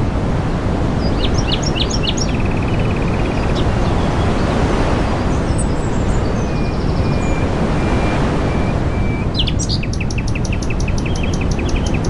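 Several small songbirds chirping, with a short trill and a few thin whistled notes, then a fast run of repeated chirps near the end, over a loud steady rushing noise.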